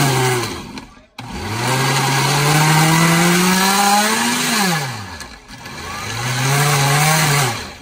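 Oster Pro 1200 blender motor running in pulses on a jar of frozen strawberries and pineapple, the first stage of crushing the frozen fruit. Three runs are heard: one winding down at the start, a long one whose pitch climbs as the motor spins up and then falls as it stops, and a shorter one that also rises and winds down near the end.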